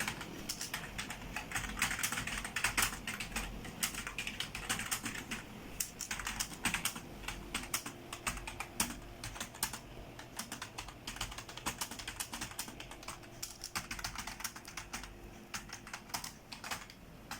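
Typing on an old computer keyboard with flat, stiff keys: a continuous stream of key clicks, several a second.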